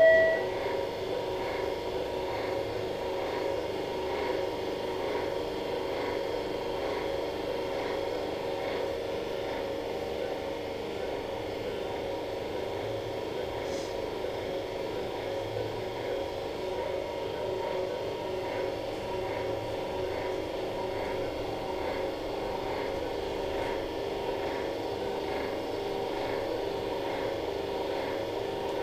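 Steady electrical hum and whir of running operating-room equipment, such as an arthroscopy tower, with several held tones and faint ticks repeating a little more than once a second. A short electronic beep is cut off right at the start.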